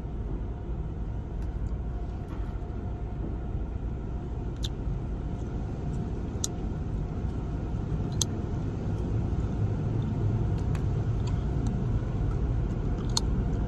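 Automatic car wash heard from inside the car's cabin: a steady low rumble of the wash machinery and water on the car, growing a little louder in the second half, with a few sharp ticks.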